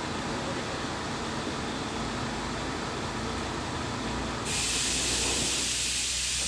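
Mercedes-Benz 1841 truck's diesel engine running, a steady, noisy rumble. About four and a half seconds in, a loud hiss joins it, and both stop abruptly at the end.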